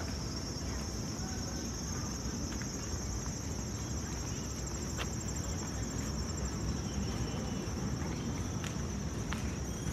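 A steady, high-pitched chorus of insects trilling without a break, over a low background rumble, with a few faint clicks.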